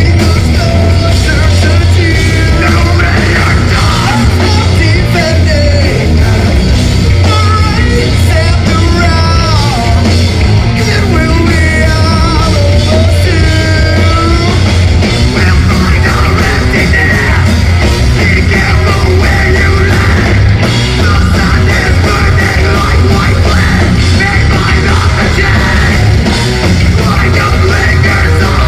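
Live heavy metal band playing loud, with a heavy low end from bass and drums and bending melodic lines over the top.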